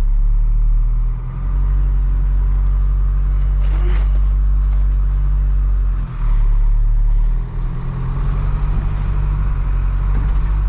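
Diesel engine of a Hino cab-over box truck pulling away and accelerating, heard from inside the cab as a steady low drone. The engine note dips and changes pitch about a second in and again around six and seven and a half seconds, as the automatic transmission shifts up.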